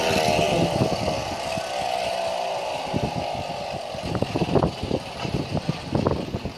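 Class 3 tethered racing car's 5 cc two-stroke engine whining high as it circles the pylon. Its pitch falls slowly as the car slows at the end of the run, and it fades by about three seconds in. Scattered knocks and bumps follow.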